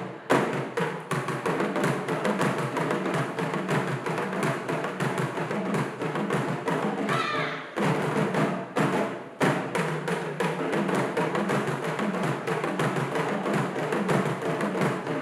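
Music with fast, dense drumming: a quick, steady beat of drum strikes, with a short break about eight seconds in.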